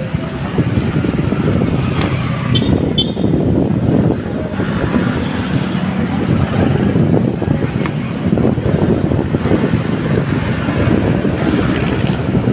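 Steady, fluttering wind noise on the microphone of a moving bicycle, mixed with street traffic: motorcycle and car engines running nearby. Two short high chirps come about two and a half to three seconds in.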